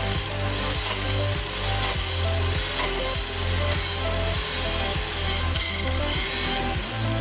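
An angle grinder's cutting disc cutting into a turning steel tube in a tube-cutting jig. The motor's high whine dips in pitch under load about five seconds in, recovers, and sags again near the end.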